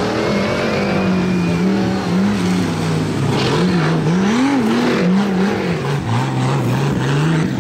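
Off-road race car's engine revving hard, its pitch repeatedly climbing and dropping with throttle and gear changes, with a rising run near the end.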